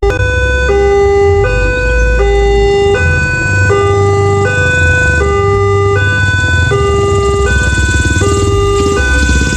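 Background music built on a repeating two-note synth figure that alternates between a low and a high note like a hi-lo siren, over a steady bass.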